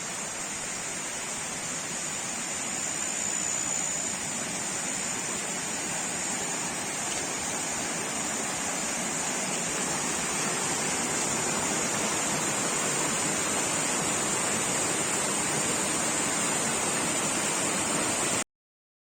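Steady rush of flowing water in a stream, growing slightly louder over the first few seconds, then cutting off abruptly near the end.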